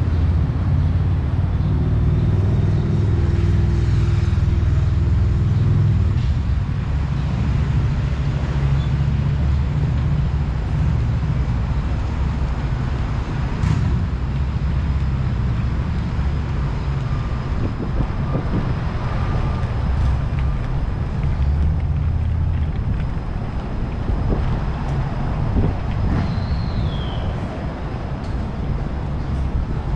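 Road traffic on a city avenue: a steady low rumble of passing motor vehicles, heaviest in the first six seconds, when an engine drone stands out. A short, high, falling chirp sounds near the end.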